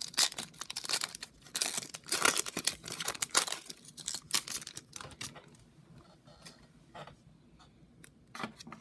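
Foil wrapper of a Pokémon booster pack crinkling and tearing as it is opened by hand. It is a dense run of crackles for about five seconds, then fainter, scattered rustling, with a brief burst again near the end.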